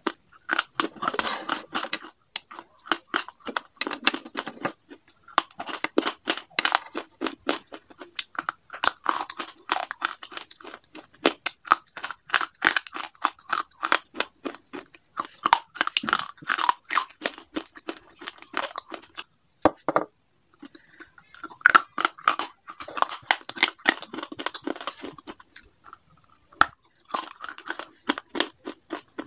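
Slate pencils and slate pieces being bitten and chewed close to the microphone: rapid runs of sharp crunches, broken by two short pauses in the last third.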